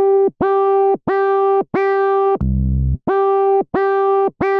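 Logic's ES M monophonic software synthesizer playing short, separate notes one at a time: about seven repeats of the same pitch, with a single much lower note in the middle.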